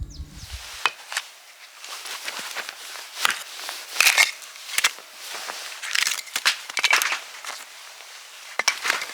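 Footsteps crunching, an uneven run of sharp crunchy steps with some rustling between them. Background music ends about a second in.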